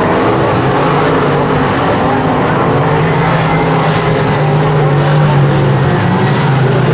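A pack of V8-engined superstock race cars running hard on a dirt oval, several engines sounding together at once as they slide through a bend.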